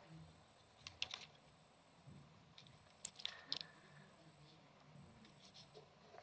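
Near silence: quiet room tone with a few short, faint clicks and taps, one small cluster about a second in and another about three seconds in.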